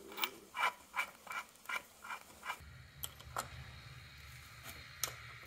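Light clicks and taps of hands working on metal engine parts: a quick run of about three taps a second, then a low hum comes in with a few scattered clicks while the distributor is handled.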